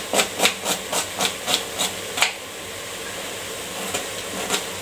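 A kitchen knife chopping a red onion on a plastic cutting board, about four quick chops a second for two seconds; the chopping stops, then a few chops come again near the end. Under it is a steady sizzling hiss from chicken cooking in an open pressure cooker.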